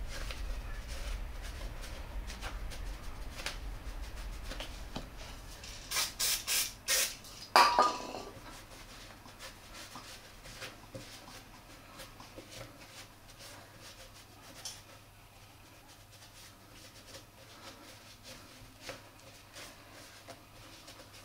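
A rag rubbing and wiping grime off a motorcycle's rear wheel hub, cleaned with aerosol brake cleaner. A few short hisses of spray come about six to seven seconds in, with a louder burst just after. The rest is quieter, irregular wiping with small clicks.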